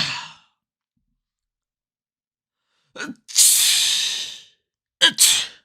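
Human sneezes: the end of one sneeze trails off at the start, then after a silence of about two and a half seconds a short intake leads into a long, breathy sneeze lasting about a second, and a quicker sneeze follows near the end.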